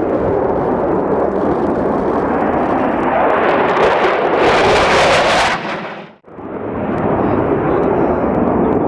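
F-15 Eagle fighter jet's twin jet engines roaring as it flies low past, the roar growing harsher from about three seconds in as the jet comes closest. Around six seconds in, the sound drops away abruptly almost to nothing, then the roar fades back in.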